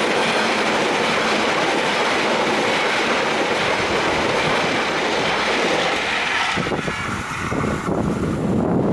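A train passing over a level crossing: a loud, steady rush of wheels on rail with some clickety-clack. About two-thirds of the way through the sound thins and drops to a lower, uneven rumble.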